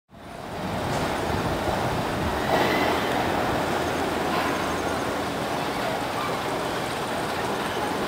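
Turbulent white water rushing steadily through the concrete channel of a river rapids ride, fading in just after the start.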